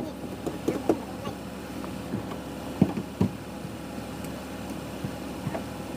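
Car engine idling steadily as it warms up after starting, with a few short knocks over it, the loudest about three seconds in.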